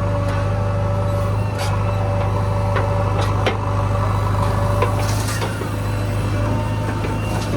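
Diesel engine of a JCB 3DX backhoe loader running steadily at work, with scattered knocks and clanks from the digging.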